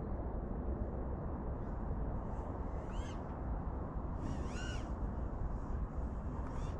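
Bird calls over a steady low rumbling noise: a short call about three seconds in, then a longer, wavering, arching call about a second later, with a few fainter calls around them.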